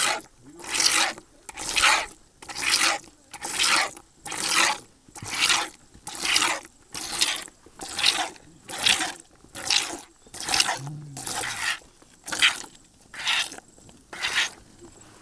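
Cow being milked by hand: streams of milk squirting into a container in a steady rhythm, a little more than one squirt a second.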